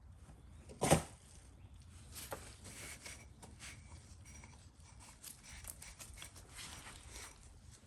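A sharp knock about a second in, then light clicks, taps and rustling as small parts and tools are handled.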